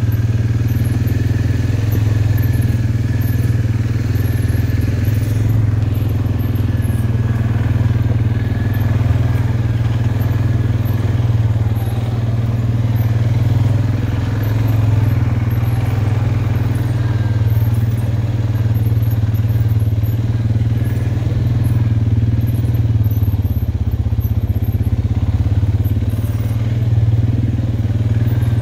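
ATV engine running steadily at low speed as it travels along, a constant low drone that barely changes.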